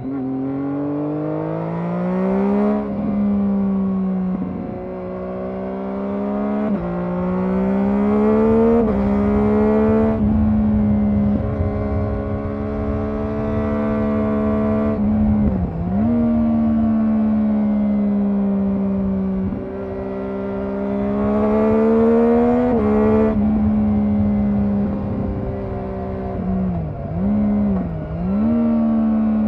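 Triumph Daytona 675R's inline three-cylinder engine pulling up through the gears: a climbing engine note that steps down at each gear change, several times. In the second half there are a few quick dips in pitch, and the revs stay mostly steady between them.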